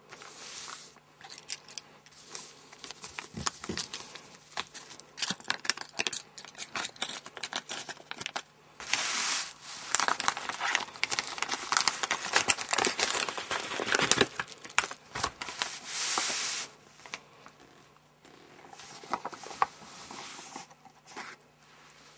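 Packaging being handled by hand: crinkling and tearing in bursts, densest about halfway through, among many small clicks and knocks. A faint steady hum runs underneath.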